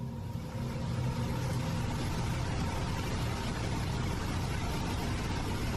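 Steady wind rumbling and hissing across a camera microphone outdoors in a snowstorm, heaviest in the low end, with no distinct call or footstep standing out.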